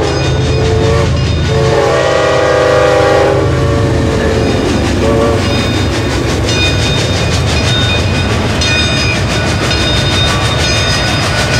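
A real train passing: its multi-tone horn sounds several times over a low rumble in the first five seconds. After that, the cars' steel wheels clatter rhythmically over rail joints with a high squeal.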